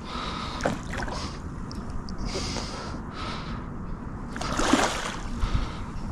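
Water splashing and sloshing as a large hooked carp fights at the surface close in, with a louder splash about four and a half seconds in.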